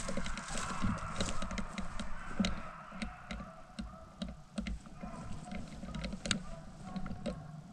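Dry leaves and twigs crackling and clicking underfoot in irregular bursts as a hunter shifts and turns in place, busiest in the first half.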